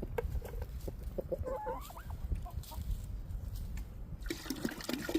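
Backyard hens clucking in short, soft calls in the snow. About four seconds in, a steady hissing noise sets in under them.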